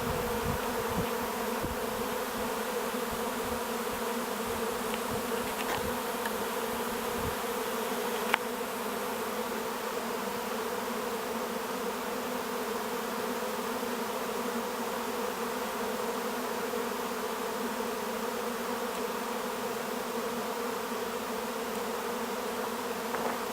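A honeybee swarm buzzing: a steady, dense drone of many bees' wings as the swarm clusters around its queen. A single sharp click about eight seconds in.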